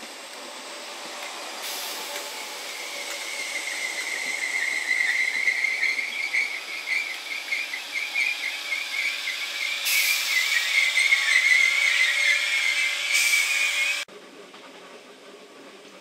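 Class 507 electric multiple unit pulling into a station platform, its wheels and brakes giving a high, wavering metallic squeal that grows louder as it slows. The sound cuts off suddenly about two seconds before the end, leaving a much quieter rumble.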